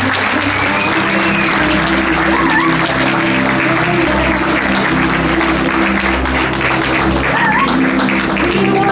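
Crowd applause and clapping over instrumental music playing steady held notes.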